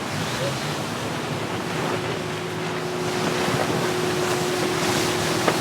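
Sea water rushing along the hull of a VO65 racing yacht under sail, with wind buffeting the microphone. A thin steady hum joins in about two seconds in.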